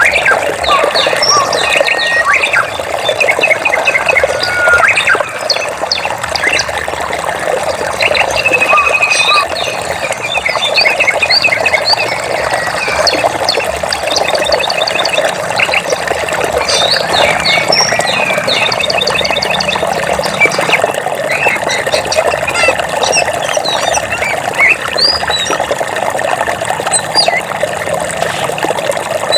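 Many birds chirping and trilling over the steady rush of running water.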